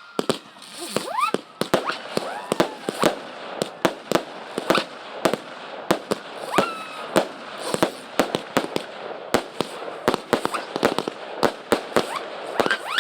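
Consumer fireworks going off in quick, irregular succession: many sharp bangs and crackles, a few per second, with a few rising whistles among them.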